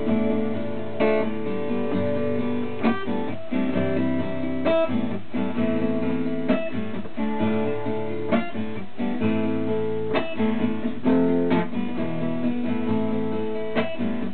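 Acoustic guitar strummed in a steady rhythm, its chords changing every second or two.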